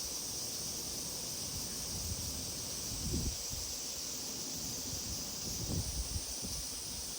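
Outdoor ambience: a steady high hiss with irregular low buffeting of wind on the microphone, a few heavier gusts around three and six seconds in.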